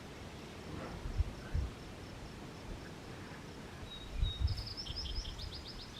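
Wind gusting against the microphone in low rumbles, with a small bird singing a quick run of high chirping notes from about four seconds in.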